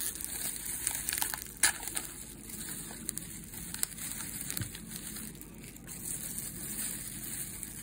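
Foil booster-pack wrapper crinkling and crackling as a stack of Magic: The Gathering cards is worked out of it, with a sharp crackle about one and a half seconds in.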